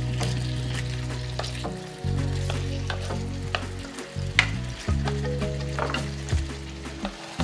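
Chicken fillet pieces sizzling in butter and oil in a frying pan while a wooden spatula stirs and turns them, with sharp knocks and scrapes of the spatula against the pan, the loudest a little past halfway. A low steady hum runs underneath and drops out briefly a few times.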